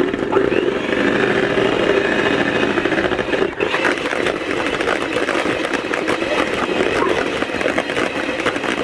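Electric hand mixer running steadily, its beaters whisking egg whites beaten with sugar as olive oil is blended in, with a brief dip about three and a half seconds in.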